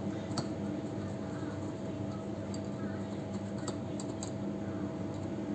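Steady machine hum with a constant tone, broken by a few light clicks of metal tools against the hashboard and socket during desoldering.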